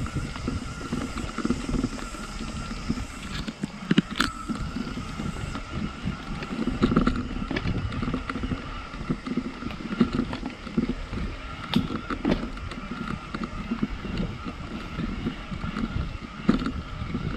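Mountain bike rattling and bumping over a rough dirt singletrack, picked up by a handlebar-mounted camera: a steady low rumble of tyres and frame, broken by sharp knocks from jolts, the loudest about four seconds in and about twelve seconds in. A thin steady high tone runs alongside.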